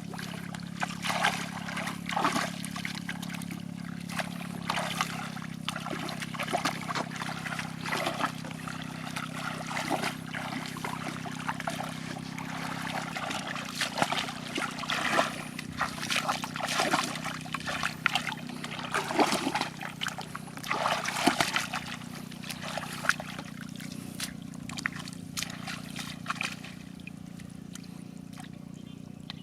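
Water splashing and trickling in irregular bursts, made by work in shallow water, over a steady low hum.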